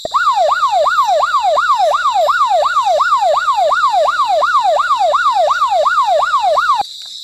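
Electronic police siren in fast yelp mode, its pitch sweeping up and down about three times a second, cutting off suddenly near the end. A steady high chirring of crickets runs underneath.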